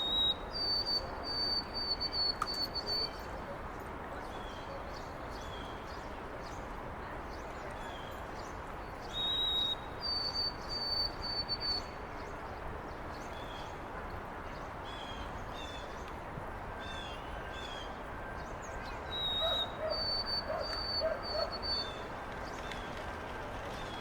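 White-throated sparrow singing three times, about ten seconds apart: each song a clear whistled note followed by a run of higher, evenly repeated whistles. Steady city background noise runs underneath, with a few short soft chirps between songs.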